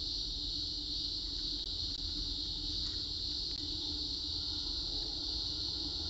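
Cicadas singing: a steady high-pitched drone that holds without a break, over a low rumble.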